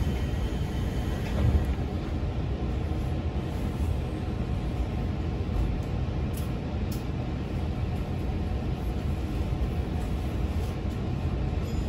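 Interior of a JR 211 series electric train running, a steady low rumble of the car heard from inside the cabin, with a brief louder bump about a second and a half in.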